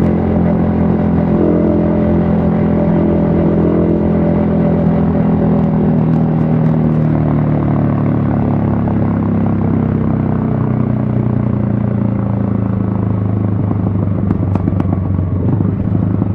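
Yamaha XSR155's single-cylinder four-stroke engine running under way, heard from a helmet-mounted camera, its note sinking gradually as the revs ease off through the middle.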